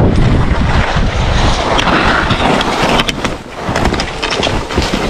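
Wind buffeting the microphone of an action camera on a skier moving fast downhill, over the hiss and scrape of skis on packed snow. In the second half, a few sharp clicks and scrapes come through as the skis run over the rougher tracked snow.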